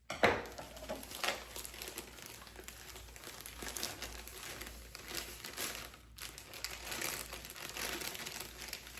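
Cake-mix bag crinkling and rustling as the dry mix is poured and shaken out of it, starting with a sharp rustle.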